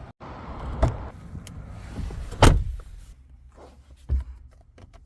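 Three knocks in and around a car over a low rumble; the loudest, a heavy thump, comes about two and a half seconds in.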